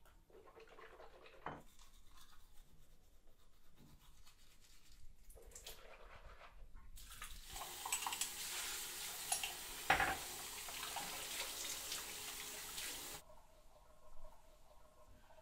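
A bathroom tap runs into a washbasin from about seven seconds in, with hands washing and splashing in the stream, then is shut off about six seconds later. Before it there are only faint small sounds of rinsing the mouth from a mug at the sink, and near the end a brief soft rub of a towel on the face.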